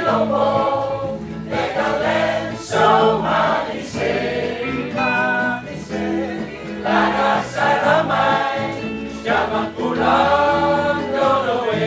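A choir singing, in phrases of a second or two over sustained low notes.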